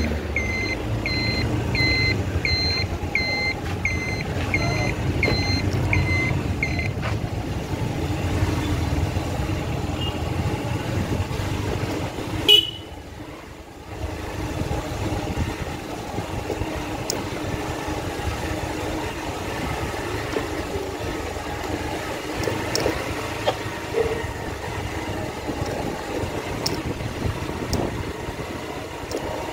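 Road-vehicle engine and traffic noise, with a vehicle's reversing alarm beeping about twice a second until about seven seconds in. About twelve seconds in comes a sharp click and a brief drop in level.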